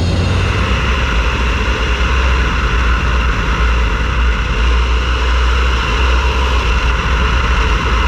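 Steady drone of a single-engine Bonanza's engine and propeller, with rushing airflow noise.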